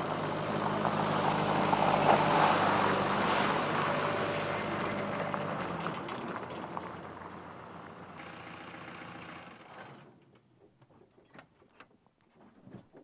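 Pickup truck driving past on a gravel track, its engine hum and tyre noise swelling to a peak about two seconds in and then fading as it pulls away and slows. The engine cuts off near ten seconds in, leaving a few faint clicks.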